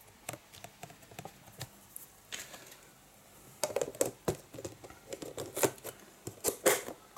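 Handling noise: scattered light clicks and knocks as a hatchling's container and perch are moved about on a tabletop, sparse at first and busier and louder in the second half.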